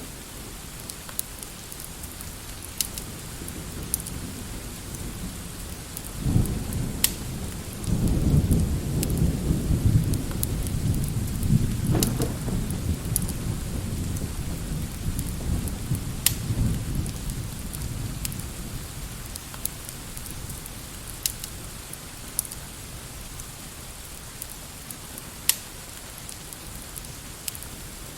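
Steady rain with a long low rumble of thunder that starts about six seconds in, swells, and dies away about ten seconds later. Scattered sharp clicks sound over the rain hiss.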